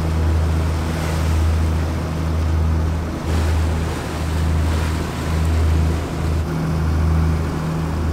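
Twin diesel engines of a cruising boat droning low, with a slow swelling and fading throb, under the steady rush of water along the hull.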